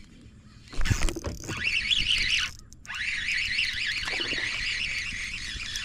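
Fishing reel being cranked fast to bring in a hooked bass, its gear whine warbling up and down several times a second, after a knock about a second in.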